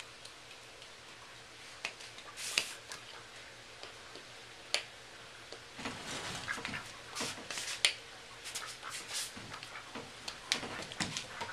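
Pet duck's webbed feet slapping and tapping on a hard floor as it runs in circles: a scattered run of sharp taps and short scuffs, starting about two seconds in and busiest in the second half.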